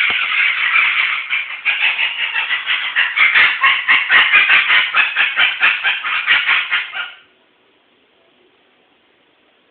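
Cockatoo screeching: a loud run of harsh calls, about four a second, that stops abruptly about seven seconds in.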